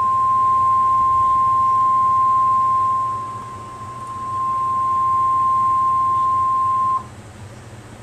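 NOAA Weather Radio 1050 Hz warning alarm tone: one steady high-pitched beep that dips in level around the middle, then stops abruptly about seven seconds in, leaving radio hiss. The tone signals that an emergency alert broadcast follows.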